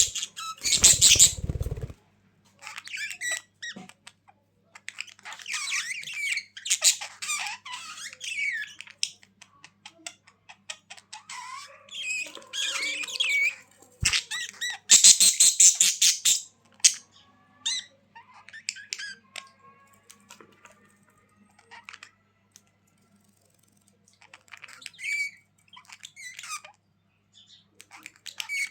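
Budgerigars chattering and warbling in bursts, with loud harsh squawks about a second in and again around fifteen seconds, and sparser twittering after that.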